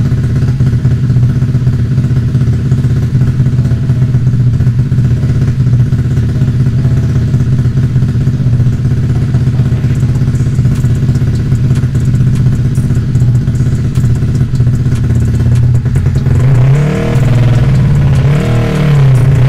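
Tuned 180cc Yamaha MX King single-cylinder four-stroke running on a chassis dyno, holding a steady note. About sixteen seconds in the revs start swinging, rising and falling twice.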